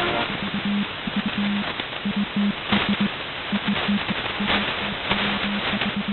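Radio static hissing with occasional crackles, and a low beeping tone keyed on and off in short and long pulses like Morse code.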